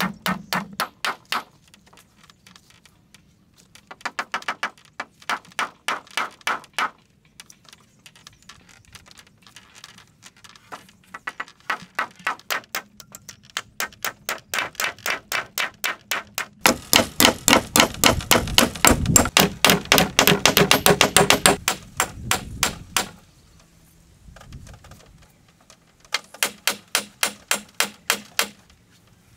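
Repeated sharp blows of a hand tool on bamboo, in runs of quick, even strokes about three a second. A longer, faster and heavier run in the middle is the loudest.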